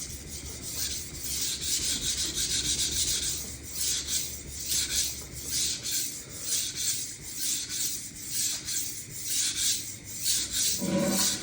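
Kitchen knife edge stroked back and forth on a Shapton Kuromaku 1000-grit water stone wetted with soapy water: a steady, rhythmic rasping scrape at about two to three strokes a second as the scratch pattern is refined.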